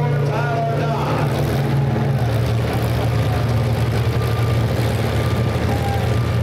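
Demolition derby cars' engines running with open exhaust pipes through the hood, a steady low rumble as the cars roll slowly around the arena.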